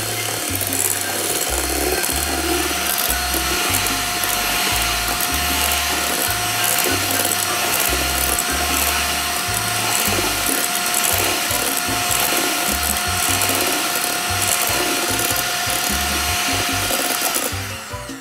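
Electric hand mixer running steadily, its twin beaters whipping egg whites into meringue in a stainless steel bowl; it cuts off near the end.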